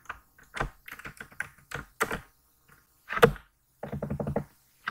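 Computer keyboard being typed on: irregular keystrokes, some single and some in quick clusters.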